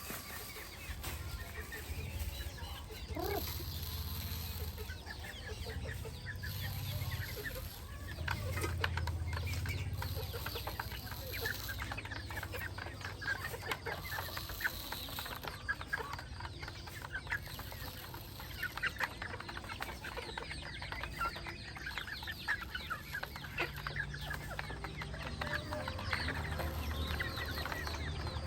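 A flock of chickens clucking, many short overlapping clucks that grow busier about halfway through, over a steady low rumble.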